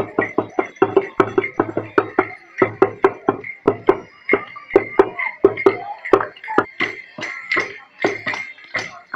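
Parade drums played in a quick, steady beat, several strokes a second.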